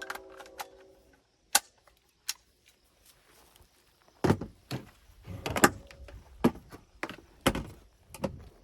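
The end of a piece of music, then a series of sharp knocks and clicks that come sparsely at first and grow louder and more frequent from about four seconds in.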